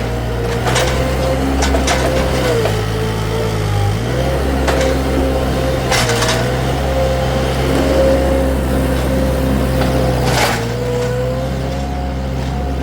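Wacker SM120 mini skid steer's engine running steadily, its pitch dipping and recovering a few times as the hydraulics take load digging at a bush stump, with several sharp knocks and clanks from the bucket and frame.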